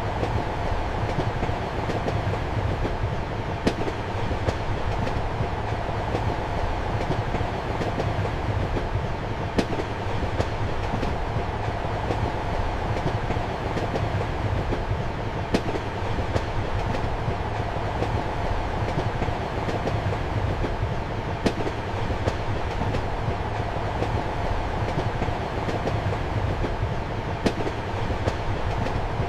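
Moving train heard from inside a compartment: a steady low rumble and hum of the carriage, with wheel clicks over the rail joints, a sharp one about every six seconds and fainter ones between.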